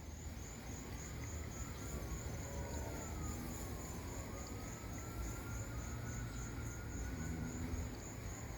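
A distant siren wailing, its pitch slowly rising and falling, over steady insect chirping that pulses about four times a second, with a low background rumble.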